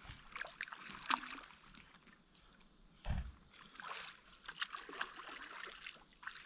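Small splashes and water lapping around an inflatable air mattress afloat, with scattered light clicks and one soft low thump about three seconds in.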